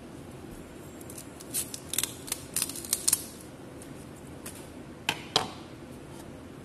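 Crisp snapping and cracking of a raw cauliflower head being broken apart by hand, its leaves and stalks torn off: a quick run of snaps over about two seconds, then two louder cracks about five seconds in.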